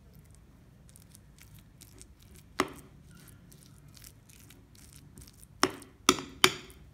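Metal spoon stirring mashed chana dal in a ceramic bowl, with soft scraping and four sharp clinks of the spoon against the bowl: one about two and a half seconds in and three close together near the end.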